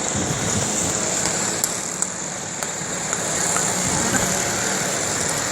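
Steady street traffic noise from passing cars, with a constant high-pitched hiss over it and a few faint clicks.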